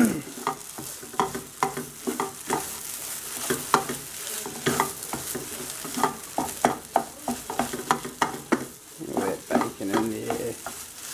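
Mashed potato and ham frying on a low heat in a non-stick frying pan, with a soft sizzle, while a spatula stirs and scrapes it, giving frequent irregular clicks and taps against the pan.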